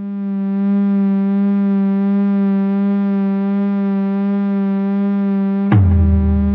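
Slowed-down song intro: one long held note, rich in overtones with a slight wobble, swelling in at the start. Near the end a deep bass and a heavy drum beat come in.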